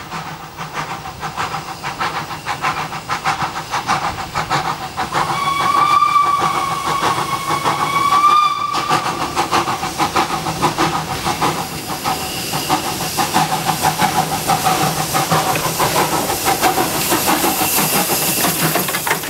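Steam locomotive approaching and passing with a train, its rapid exhaust beats growing louder. Its steam whistle sounds once for about three and a half seconds, a quarter of the way in. Near the end it passes close with a hiss of steam as the carriages roll by.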